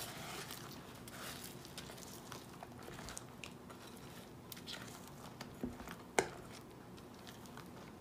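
Spatula folding a thick, airy cream mixture studded with frozen berries and praline crumbs in a glass bowl: soft wet squelching and scraping with scattered small clicks, and one sharper click about six seconds in.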